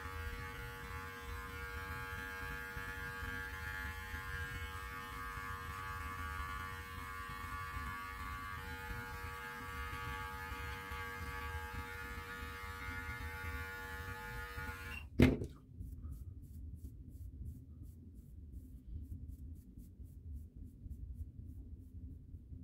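Electric beard clippers running with a steady hum while trimming stray flyaway hairs from a long beard, switched off with a click about 15 seconds in. After that comes a run of faint quick strokes as a brush is drawn through the beard.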